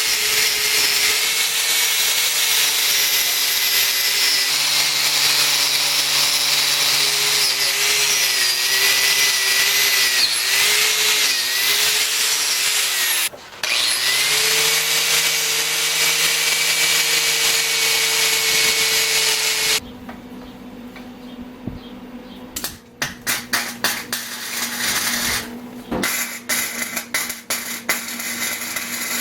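Electric power tool running under load on steel, its motor pitch dipping and recovering, with a brief stop about thirteen seconds in. It shuts off around twenty seconds in, followed by a series of clicks and knocks.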